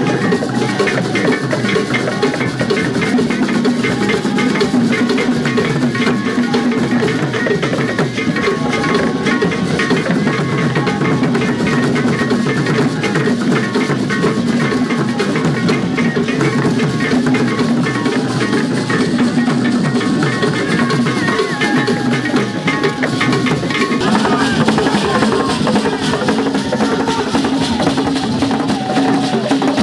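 Traditional Ghanaian drum ensemble playing: several barrel-shaped hand drums beaten in a fast, dense, unbroken rhythm.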